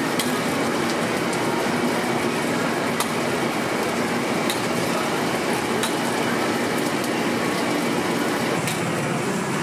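Steady noisy ambience of a street-food stall, with a few light sharp clicks as quail eggs are cracked open into small metal cups.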